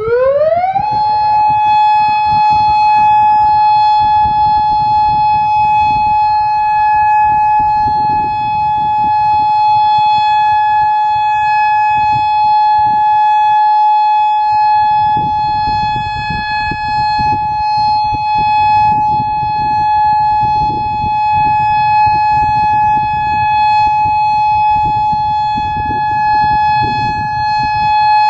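Federal Signal Modulator electronic outdoor warning siren sounding its steady alert tone for the weekly test. It rises quickly in pitch in the first second, then holds one loud, steady tone.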